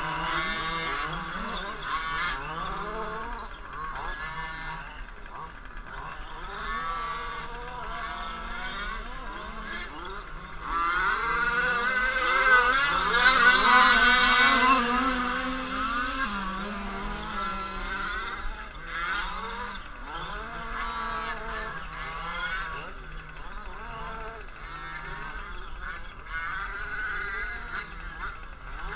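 Small two-stroke gas engines of several 1/5-scale RC off-road trucks revving and easing off as they race, their whines overlapping and rising and falling in pitch. They are loudest about 11 to 16 seconds in, when one truck passes close.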